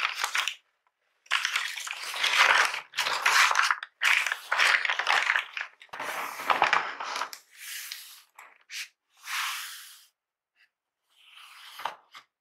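Brown kraft packing paper crinkling and rustling in a series of loud bursts, followed by softer rustles and scrapes of a cardboard shipping box being handled.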